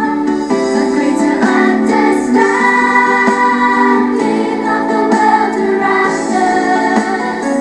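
A song playing: voices singing together over instrumental accompaniment.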